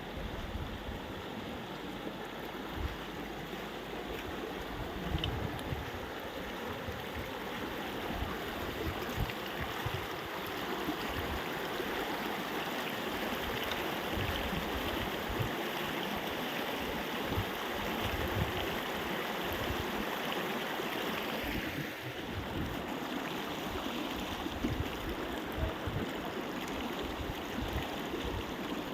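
Flowing river water, a steady rushing, with irregular low rumbling underneath.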